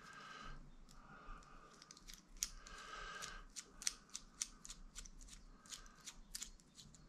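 Small metallic clicks and scrapes from a hobby knife being handled, its metal collet twisted to change to a thin blade. The clicks come thick and fast from about two seconds in.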